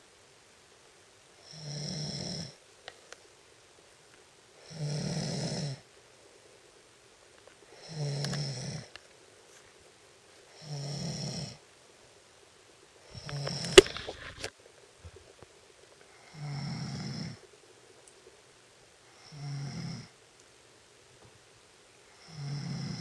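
Snoring at a slow, even rhythm: eight snores about three seconds apart, each lasting under a second. A single sharp click sounds partway through the snore about two-thirds of the way in.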